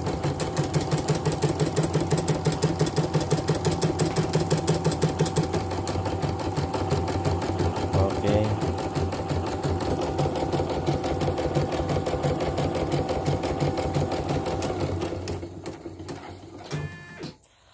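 CNY computerized embroidery machine stitching at speed on a final test run, a fast steady rhythmic clatter of needle and hoop drive. It winds down and stops about fifteen seconds in, followed by a short run of quick ticks.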